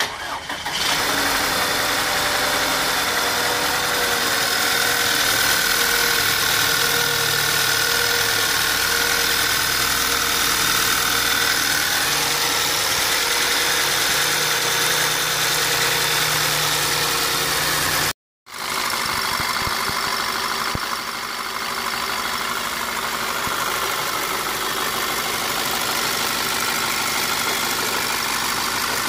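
Volkswagen Tiguan's 2.0-litre petrol four-cylinder engine running at idle, a steady mechanical sound with a whine over the first twelve seconds. It drops out for a moment about two-thirds of the way through, then idles on.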